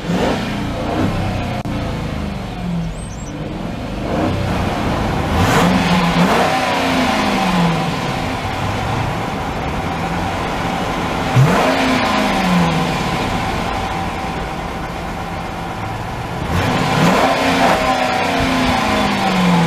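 The 5.7-litre Hemi V8 of a 2012 Jeep Grand Cherokee Overland, heard from behind at its exhaust tips, idling and revved four times in park. Each rev climbs quickly and then slides back down to idle.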